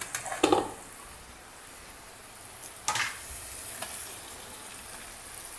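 Oil sizzling steadily in a kadhai as a green paste of ginger, garlic, coconut and coriander fries. A spatula knocks against the pan twice, about half a second in and again about three seconds in.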